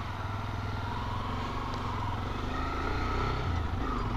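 Adventure motorcycle engine running at low speed on a rough dirt track, a steady low rumble that grows a little louder toward the end.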